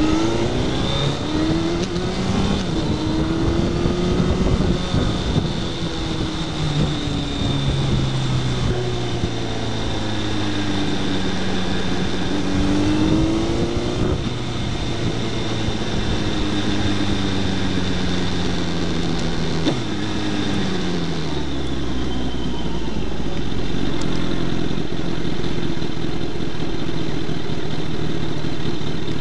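Suzuki Hayabusa's inline-four engine running under way, its pitch rising and falling several times as it accelerates and backs off through the gears, over wind and road noise. About three quarters of the way through it drops to a lower, steady run as the bike slows right down.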